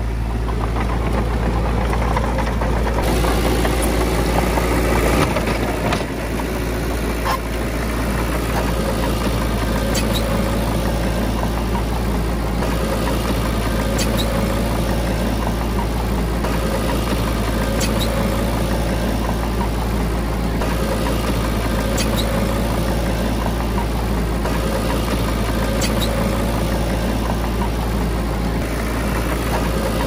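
Heavy diesel engine running steadily at a constant speed, with a faint sharp tick about every four seconds.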